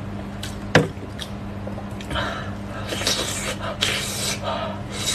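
Close-miked wet slurping and sucking of someone biting into soft, sauce-covered sheep stomach stuffed with brain, in repeated bursts from about two seconds in. A single sharp click about a second in is the loudest sound.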